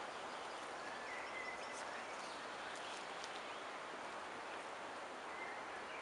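Wind blowing steadily through pine trees, with small birds calling over it: a held whistled note about a second in, a few short high chirps, and another brief whistle near the end.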